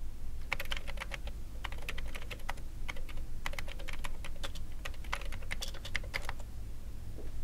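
Typing on a computer keyboard: quick, irregular key clicks that start about half a second in and stop about a second before the end.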